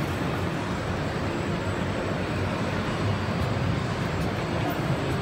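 Flexographic label printing machine running steadily as it feeds printed label tape over its rollers: an even, unbroken mechanical noise.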